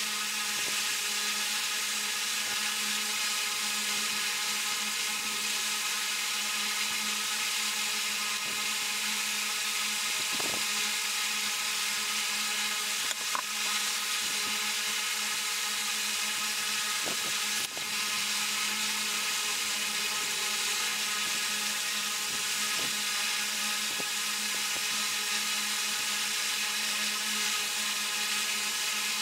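Steady mechanical whir and hiss with a constant low hum, from a small electric motor. It is broken by a few light clicks and knocks.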